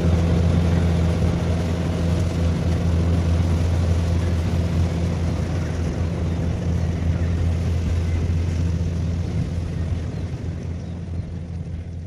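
Combine harvester running steadily while cutting rice, a continuous low engine drone with a hum under it. It grows fainter near the end.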